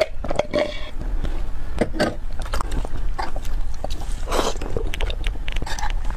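Close-miked eating sounds: rapid wet mouth clicks and smacks of chewing, with a couple of short slurps.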